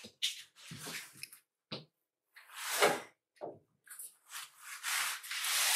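A door being opened amid short scuffs and rustles of someone moving about the room; a longer swishing scrape comes about four seconds in.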